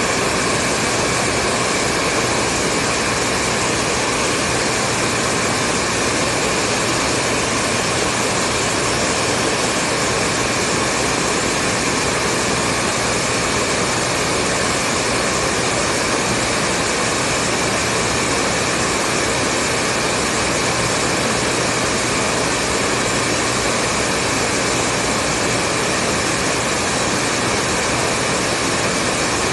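Hair dryer running steadily: a continuous blowing whoosh with a faint hum and a few steady whine tones, unchanging throughout.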